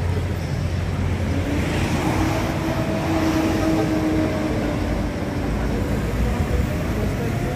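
Street traffic noise: vehicle engines running and passing, with a steady engine hum from about one to five seconds in.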